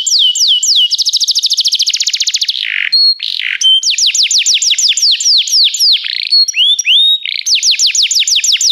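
Domestic canary singing a continuous song of trills: runs of quick falling notes, some very fast, broken by a few short steady whistles and a brief rasping phrase.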